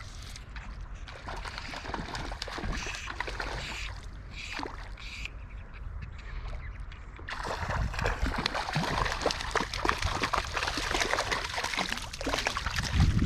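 River water splashing and sloshing in irregular spurts, sparse at first, then denser and louder from about seven seconds in.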